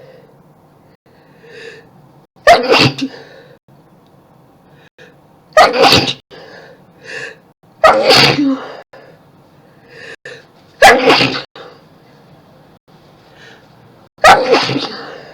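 A person in a sneezing fit, sneezing loudly five times about every three seconds. Each sneeze is preceded by a short, quieter intake of breath.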